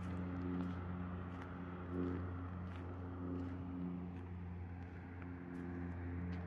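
A motor vehicle's engine running steadily, a low hum with a stack of steady tones, with light ticks of footsteps about every half second.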